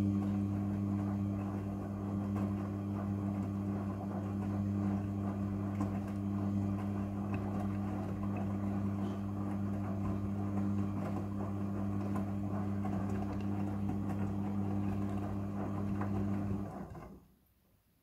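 Midea front-loading washing machine in its wash cycle: a steady motor hum under the swish and slosh of wet clothes tumbling in the drum. The hum stops abruptly near the end as the drum comes to rest.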